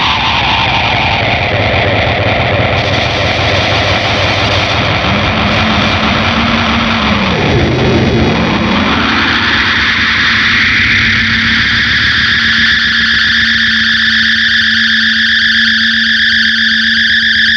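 SG electric guitar through a Big Muff fuzz, MXR analog delay and light reverb, making a dense, distorted wash of spacey sound. Its pitch swoops downward in the first second, dips and rises again around the middle, then settles into a held, sustained drone.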